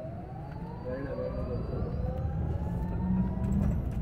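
Olectra K9 electric bus's drive motor whining, the whine rising steadily in pitch as the bus gathers speed and then levelling off, heard inside the cabin over low road and tyre rumble.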